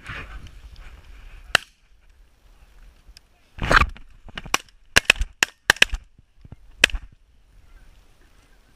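A rapid volley of shotgun shots at geese over decoys, about eight in some three seconds: the first and broadest a few seconds in, then a quick string of sharp cracks and a last one near seven seconds.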